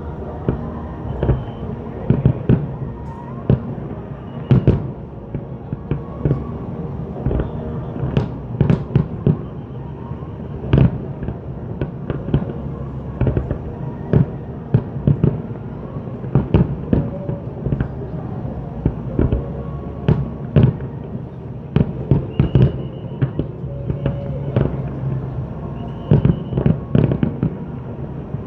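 Fireworks display: aerial shells bursting in sharp bangs at irregular intervals, several in quick clusters, over a steady background of music.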